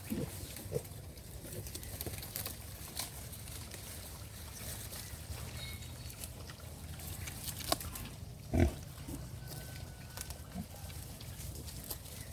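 Native pigs grunting and moving about in their pen. One much louder short, low sound comes about eight and a half seconds in.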